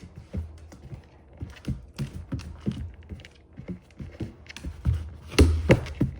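Labrador retriever's claws clicking and paws padding on a hard floor in an irregular walking rhythm, with a louder thump near the end.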